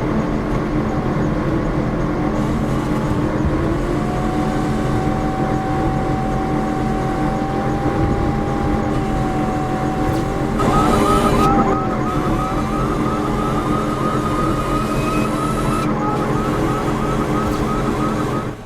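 Motor vehicle running steadily, with a held whistle-like tone through the middle and, from about halfway, a rapidly repeating electronic chirp, about two or three a second.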